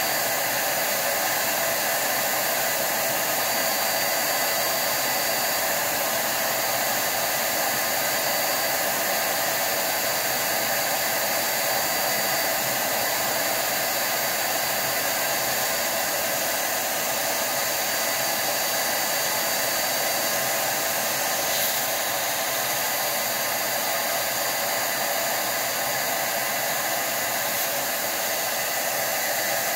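Metro DataVac electric duster running steadily, a constant rush of hot air with a steady motor whine, blasting resin build-up out through a vaporizer's cooling chamber.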